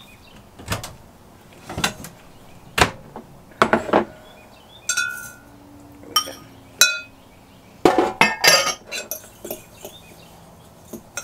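A metal spoon clinking and scraping against glass bowls as butter-moistened Oreo crumbs are scooped from a small glass bowl into a larger one and stirred. About a dozen separate clinks, a few with a brief glassy ring.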